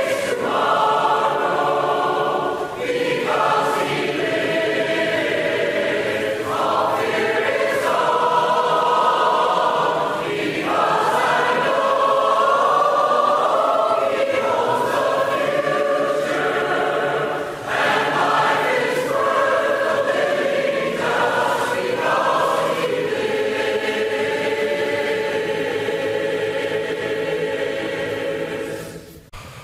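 Large congregation singing a hymn a cappella in parts, the many voices fading and the song ending near the end.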